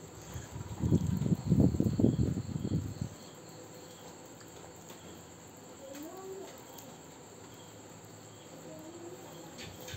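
Crickets chirping faintly, a short high chirp about once a second. Over the first three seconds there is louder low rustling and thumping noise.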